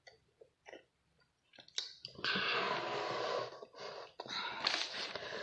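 Loud rustling and brushing close to the microphone, in two stretches of a second or more each, about two seconds in and again past four seconds, with a few clicks, as an arm and a plastic cup come right up against the recording phone.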